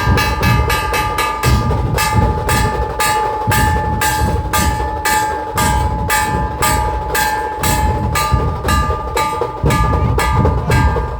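Dhol tasha ensemble playing a fast, even rhythm: sharp strikes about four a second with a steady metallic ringing over them, and booming dhol beats coming and going underneath.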